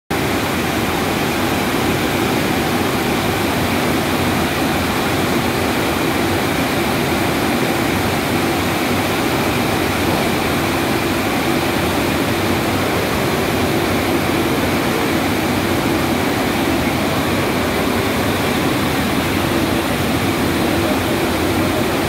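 Wood-fired cyclone furnace boiler running: a loud, steady rushing noise of the fire and its forced air draft, even throughout with no breaks.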